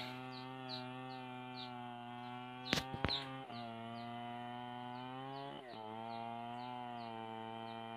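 Gasoline chainsaw running at high revs as it cuts into a mango tree trunk: a steady engine note with brief dips in pitch a little after three seconds and near six seconds, and a couple of sharp knocks about three seconds in.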